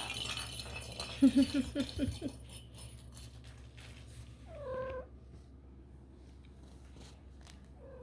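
Young kittens mewing: one high, short mew about halfway through and another at the very end, after a run of short, quick calls in the second second. A rattling clatter fades away at the start.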